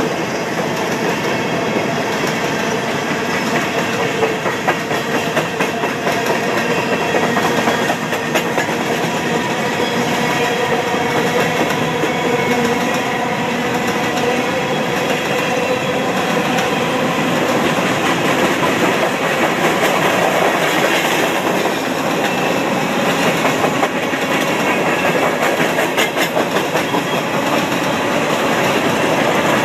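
Empty coal hopper cars of a freight train rolling past close by: steady wheel rumble and clickety-clack over the rail joints, with a faint whining tone in the first half.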